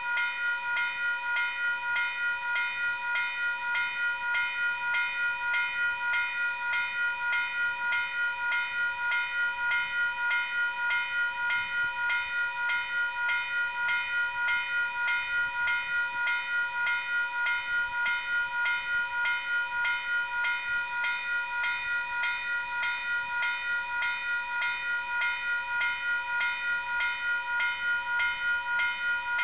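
Railway level-crossing warning bell ringing steadily at a few strikes a second, sounding while the crossing's lights flash and barrier arms are down for an approaching train.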